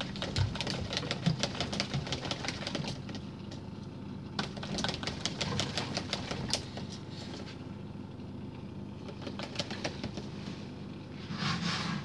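Dishwasher drain pump running on with a steady low hum, and bursts of rapid clicking and rattling that come and go over it. The pump keeps running although there is no water to drain, a fault the owner puts down to a stuck flood float switch.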